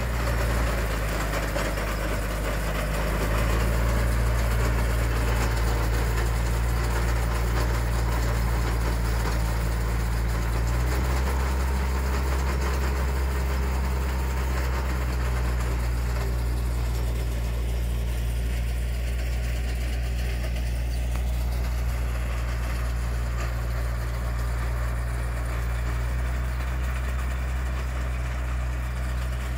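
Small riding farm tractor's engine running steadily under load as it pulls an onion digger through the rows. Its note shifts slightly about three seconds in and again about eleven seconds in.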